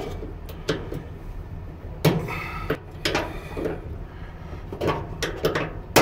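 Flat-blade screwdriver prying a plastic retaining clip off a dryer drum roller's metal shaft: a string of irregular clicks, scrapes and knocks, with a sharp snap at the very end as the clip comes free.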